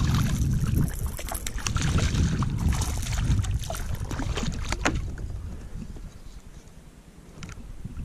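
Small Australian bass thrashing and splashing at the water's surface beside a fishing kayak as it is reeled in, a run of sharp splashes over a low rumble. The splashing dies away after about five seconds.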